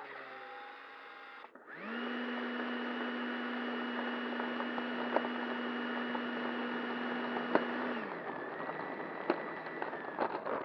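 Freewing F15's 90mm inrunner electric ducted fan spinning up about a second and a half in and running at a steady part throttle with a high whine, the pitch dropping around 8 s before it winds down near the end. A few sharp clicks sound over it.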